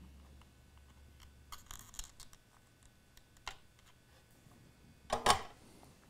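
Faint clicks and scratches of pliers and a soldering iron working a wire dropper onto a small metal solder tag, with one louder knock about five seconds in as the iron is taken away and set down.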